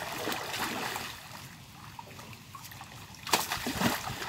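Water splashing as a large fish is grabbed by hand in a shallow river, with a burst of heavy splashes about three seconds in.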